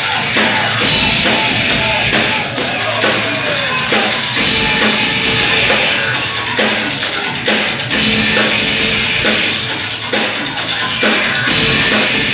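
Industrial metal band playing live: loud amplified music with a heavy, pounding drum beat, heard from within the audience.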